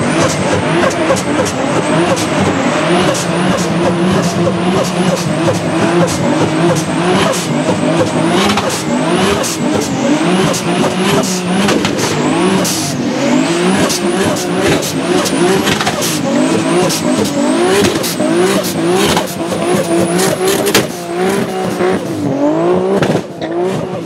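Car engine held at high revs during a burnout, the revs wavering up and down as the spinning rear tyres squeal, with sharp crackles throughout. The engine briefly drops off about 21 s in and again near the end.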